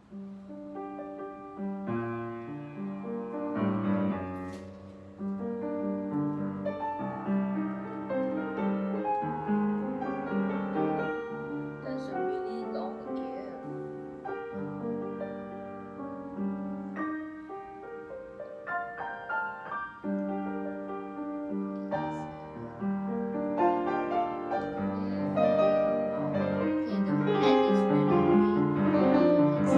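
Piano music with many chords and melody notes, growing gradually louder toward the end.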